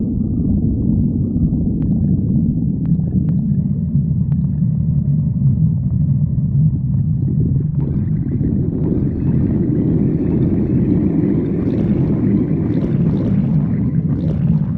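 Stomach growling: a long, continuous low rumble, with higher gurgling joining in from about halfway through.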